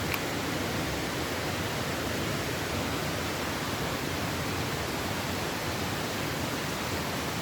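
Steady, even rushing noise with no rhythm or pitch, and a brief faint click just after the start.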